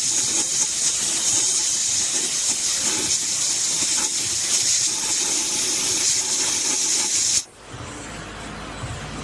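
A steady high hiss of compressed air jetting from a nozzle, which cuts off abruptly about seven seconds in, leaving a quieter, duller noise.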